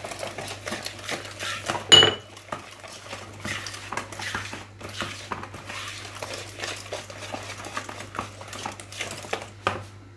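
A utensil scraping and knocking irregularly in a bowl as a thick madeleine batter is mixed by hand. About two seconds in, the utensil strikes the bowl with a sharp ringing clink.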